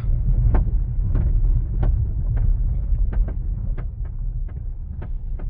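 Car cabin road noise while driving: a steady low rumble with light clicks and knocks every second or so.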